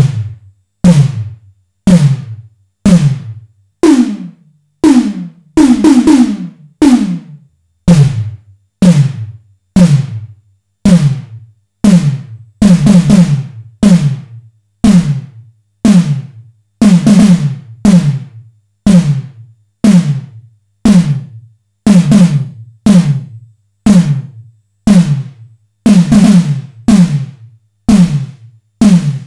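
Simmons SDS7 hybrid analog/digital electronic snare voice, struck about once a second. Each hit has a sharp attack, a downward pitch sweep and a short decaying tail with a touch of reverb. Its tone changes from hit to hit as the pitch, bend and filter settings are adjusted.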